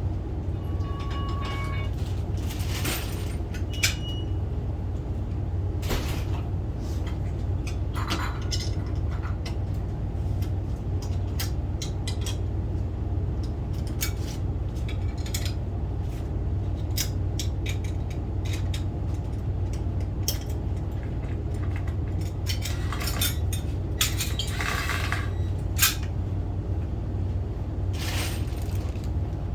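Steady low hum with scattered metallic clinks and knocks as tools and door hardware are handled.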